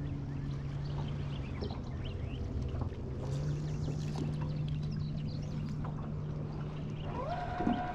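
Boat's electric trolling motor humming steadily, its pitch stepping up about three seconds in as the boat is shifted over. Near the end a loud drawn-out call rises and then holds.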